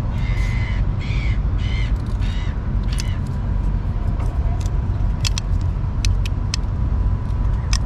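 Light clicks and taps of plastic and metal parts being handled while a new O-ring is fitted to an oil filter housing, over a steady low rumble. A few short pitched calls come in the first couple of seconds.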